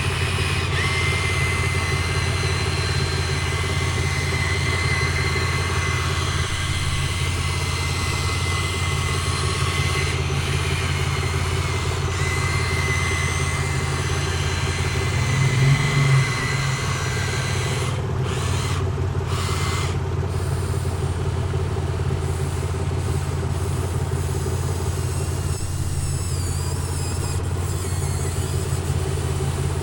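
Excavator running steadily: a constant low drone from its motor and hydraulics, swelling briefly about halfway through as it works.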